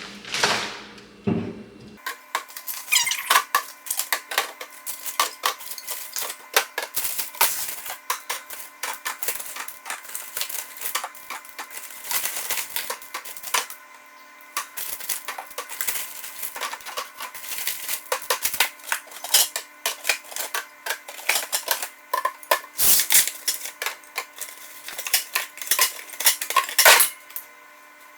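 Drink cans clinking and clattering as they are stacked into a refrigerator, in a long run of quick, irregular knocks.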